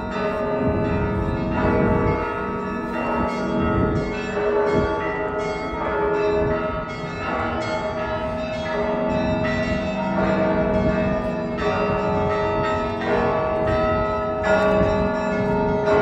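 Russian Orthodox church bells of the Cathedral of Christ the Saviour ringing a festive Easter peal: many bells of different pitches struck in quick succession, their tones ringing on over one another.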